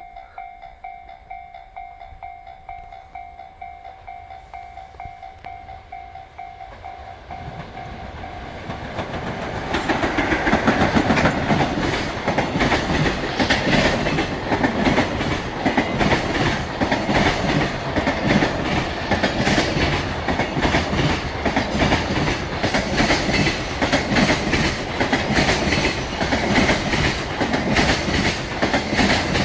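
A Japanese level-crossing warning bell rings steadily. Then a JR Freight EF66 100-series electric locomotive hauling a long rake of Koki container wagons passes close by, growing loud from about seven seconds in. Its wheels beat a heavy rhythmic clatter over the rail joints.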